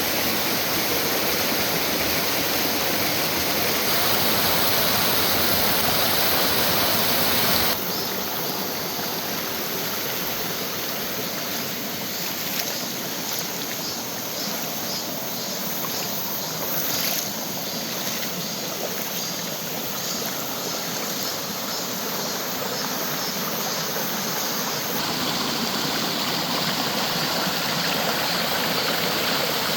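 Mountain stream running steadily, a continuous rush of water. The sound shifts abruptly a few times, dropping about eight seconds in and growing fuller again near the end.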